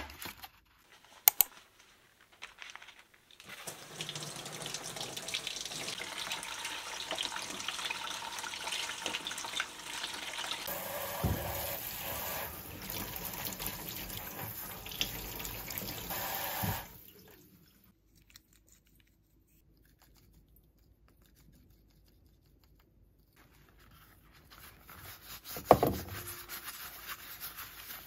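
Water running from a kitchen tap for about thirteen seconds while lemons are washed, after a few clicks from a plastic clamshell pack of lemons. Near the end, one sharp knock, then gloved hands rubbing powder-coated lemons in a glass bowl.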